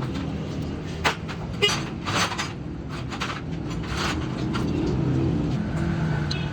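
Motorcycle engine running steadily, with several sharp clicks or knocks over it.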